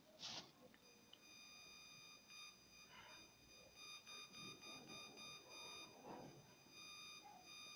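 Near silence: room tone with a faint, steady high-pitched electronic tone.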